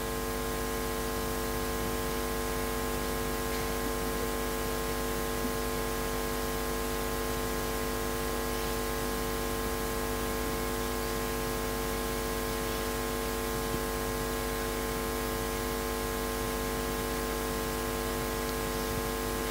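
Steady electrical hum and hiss from a public-address system: a buzz held at one pitch that never changes.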